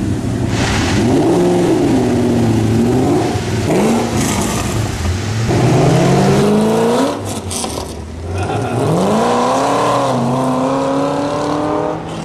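V8 car engine revving several times, its pitch climbing and falling with each rev, with a longer climbing rev around the middle before it settles near the end.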